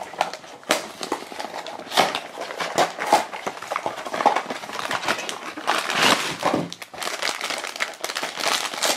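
Thin cardboard of a small Funko Mystery Minis blind box being handled and its flap pried open: an uneven run of crinkles, scrapes and taps, with a few louder rustles.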